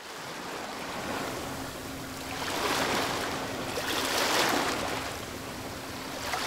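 Ocean surf: a steady rush of water that swells twice, about two and a half and four seconds in, then settles.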